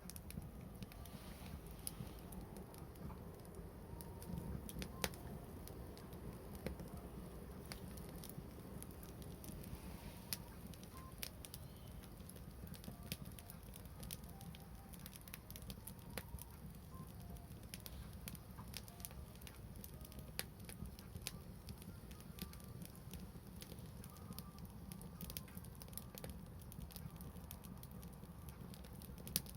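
Wood fire crackling: a steady run of small sharp snaps and pops over a low rumble, with a few louder pops.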